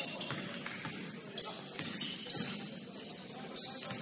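Basketball shoes squeaking on a court floor during play, several sharp high-pitched squeaks a second or so apart, over the low hubbub of the gym.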